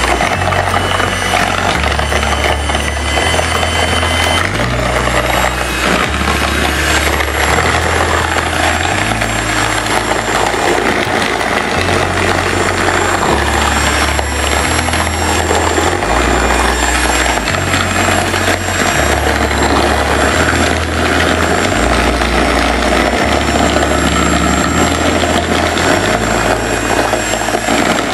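Electric hand mixer running steadily at medium-high speed, its beaters whisking eggs and sugar for a sponge cake batter towards the pale, thick ribbon stage. A background music bass line steps from note to note underneath.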